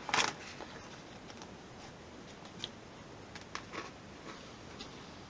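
Hands handling a plastic folder and cardboard packaging: one short crinkle right at the start, then faint scattered rustles and light ticks.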